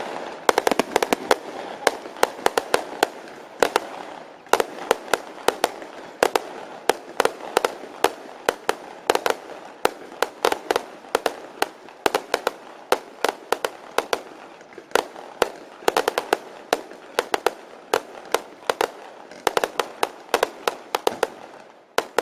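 Fireworks set off from a cart going off in rapid, irregular sharp cracks and pops. They come in dense clusters with brief lulls between them, over a steady crackling haze.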